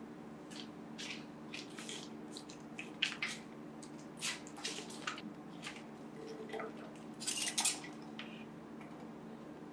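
Dried clay trimming scraps clicking and rattling in a plastic pottery-wheel splash pan as it is gripped and lifted: scattered short, light clicks, with a denser cluster about three-quarters of the way through.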